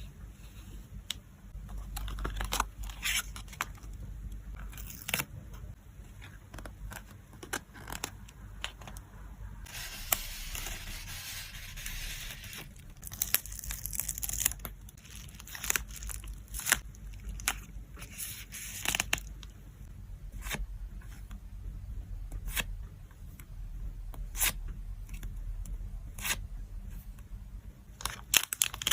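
Photocard packing materials being handled: plastic and paper wrapping tearing and crinkling, with many scattered sharp clicks and taps. A longer tearing sound lasts about two and a half seconds, starting about ten seconds in.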